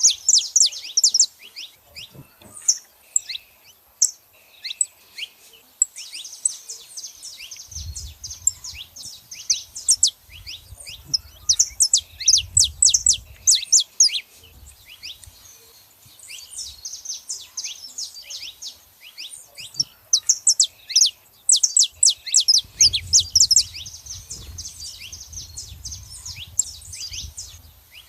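Saffron finches calling, a rapid run of short, sharp, downward-sliding chirps in bouts with brief lulls between them. A low rumble sounds underneath twice.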